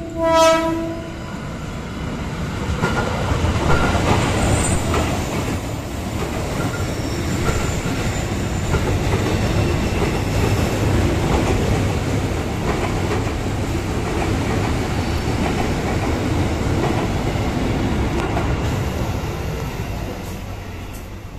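A single short horn blast from a KRL electric commuter train about half a second in, then the steady rumble and wheel clatter of the train passing along the rails, with a few brief high wheel squeals a few seconds in. The rumble drops off near the end.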